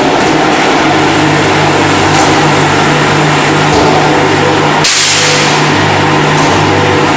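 Tornado airless paint sprayer running: its pump motor hums steadily under a constant hiss of spray, with a sudden sharper hiss about five seconds in.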